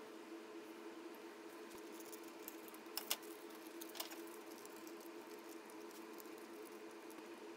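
Handling of paper and steel scissors on a perforated metal workbench: a few sharp clicks about three and four seconds in as the scissors are picked up, then faint rustling and snipping of paper. A steady low hum runs underneath.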